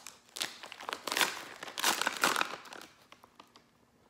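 Plastic jerky pouch being opened: a run of loud crinkling and tearing from about half a second in, dying away after about three seconds into a few faint rustles.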